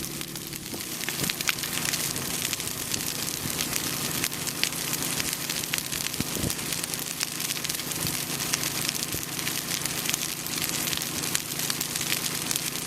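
Brush-pile fire burning, with constant crackling and frequent sharp pops from the burning wood.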